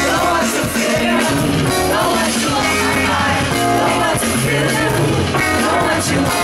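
A woman singing live over her band, with keyboards, bass and drums playing a steady groove under the melody.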